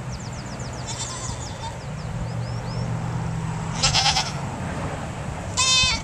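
Goats bleating: three short, high-pitched bleats, a faint one about a second in, a loud one about four seconds in, and the loudest, wavering one near the end.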